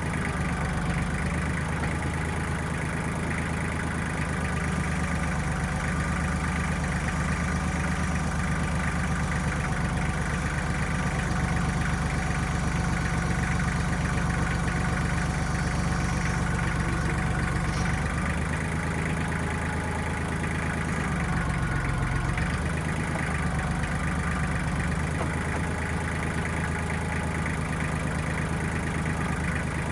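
Diesel engine of a 1995 Kubota backhoe running steadily under varying light load, its note shifting a little now and then.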